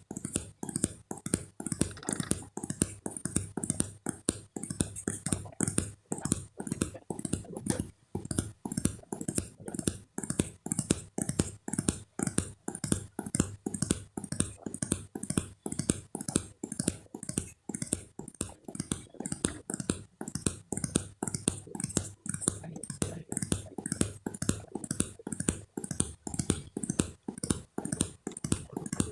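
A rapid, steady series of short clicks or taps, about three or four a second, with no pause.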